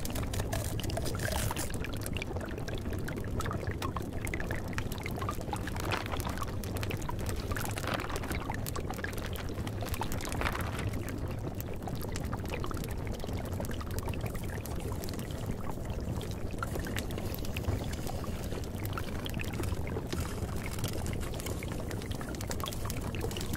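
Steady flowing water, an even rushing and trickling with no breaks, used as the masking track of a subliminal recording.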